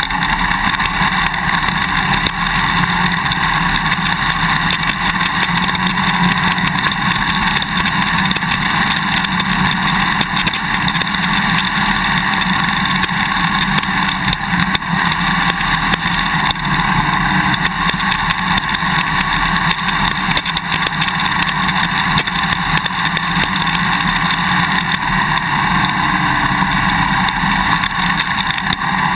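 Suzuki DR-Z400 single-cylinder four-stroke dirt bike running at a steady pace, heard from a GoPro mounted on its swing arm, with constant clicking from the camera's quick-release buckle vibrating in its mounting bracket.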